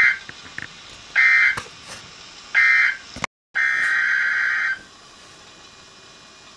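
Weather-radio SAME digital data tones: three short buzzing bursts about a second and a half apart, the end-of-message code after a tornado warning, then a brief dropout and a longer burst of the same buzzing data sound. A low steady hiss follows.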